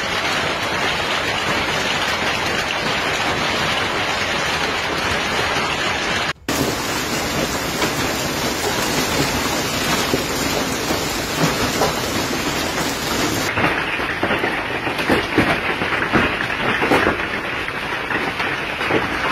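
Heavy hailstorm: hail and rain pelting the ground in a dense, steady rush, breaking off for a moment about six seconds in. In the later part, separate hard knocks of hailstones stand out from the rush.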